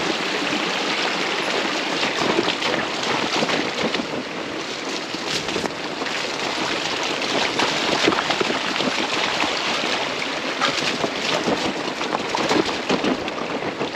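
Fat-tire electric bike rolling down a wet, rocky trail: a steady hiss of the tyres on wet gravel and water, with frequent small clicks and rattles from stones and the bike.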